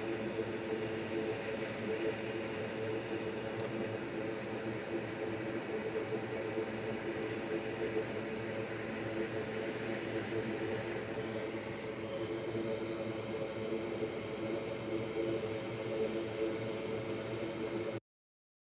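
Small fan running with a steady whir and hum, cutting off abruptly near the end.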